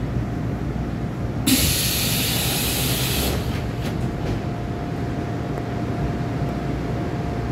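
Busan Metro Line 1 thyristor-chopper subway car running, heard from inside the car: a steady low rumble with a faint steady hum. About a second and a half in, a sudden loud hiss starts and lasts about two seconds, followed by a few faint clicks.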